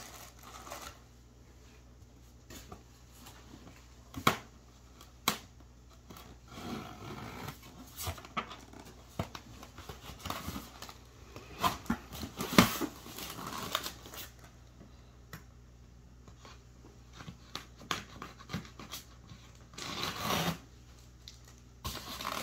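Rustling and crinkling of wrapping paper and packing material, with scattered knocks, scrapes and squeaks of styrofoam packing blocks being handled and pulled apart.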